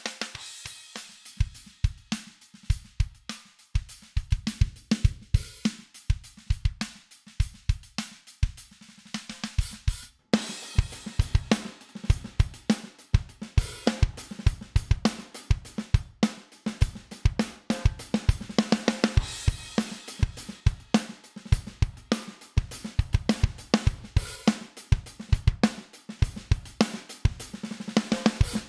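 Drum kit mix (kick, snare, hi-hats and cymbals) playing a steady groove as a drum bus compressed by the SSL Native X-Comp plugin. About ten seconds in it drops out for an instant and comes back fuller and brighter.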